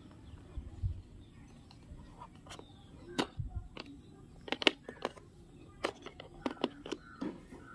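Irregular light clicks and taps of a plastic neckband earphone and its cable being handled and lifted out of a cardboard box tray.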